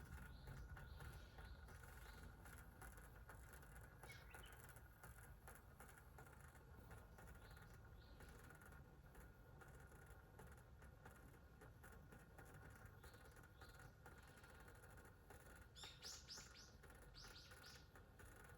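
Faint bird chirps over near silence. There are a few short high calls, with a quick cluster of them about three quarters of the way through.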